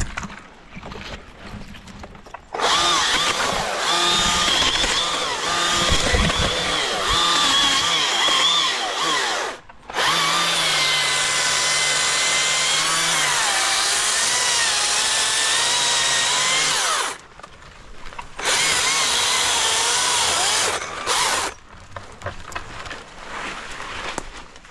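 Husqvarna 542i XP battery chainsaw cutting through a tree trunk in three long runs with short pauses between them: its electric motor whines, the pitch wavering as the chain bites into the wood.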